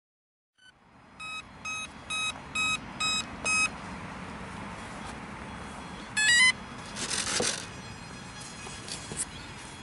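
E-flite Carbon-Z Splendor's electronic speed controller beeping through its brushless motor as the flight battery is connected. There are six even beeps about half a second apart, then a quick rising run of tones as the controller arms, followed by a brief rustle.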